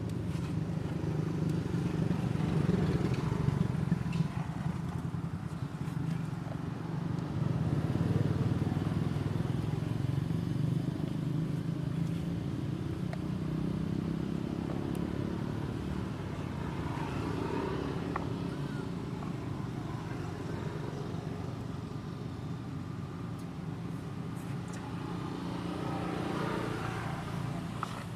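A motor vehicle's engine running steadily, a low rumble that eases slightly after the first half.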